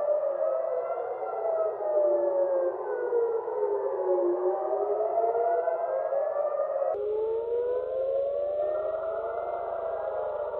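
Several civil-defence air-raid sirens wailing together, their pitches slowly rising and falling out of step with one another, sounding a missile-attack alert. About seven seconds in it changes abruptly to another siren recording with a similar wail.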